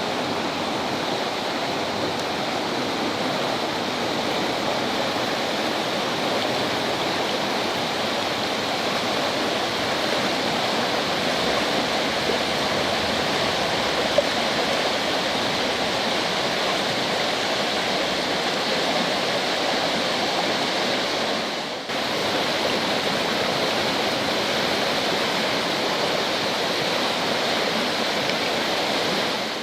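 Mountain stream rushing, a steady, even roar of water, with a brief dip about three quarters of the way through.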